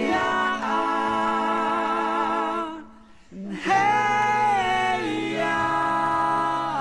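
Background music: slow vocal harmonies holding long notes without clear words, with a short break about three seconds in.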